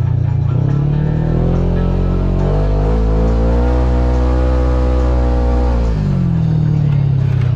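Kawasaki Teryx KRX 1000 side-by-side's parallel-twin engine speeding up over about two seconds, holding high revs for about three seconds, then easing back down near the end.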